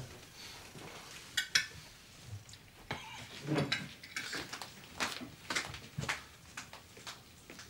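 Knife and fork clinking and scraping on plates and glasses at a dinner table, in irregular small clicks and knocks.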